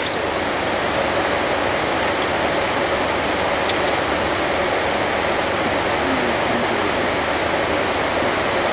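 Steady rushing noise on the flight deck of a Boeing 747-8 in cruise: airflow over the nose and windscreens mixed with air-conditioning hiss.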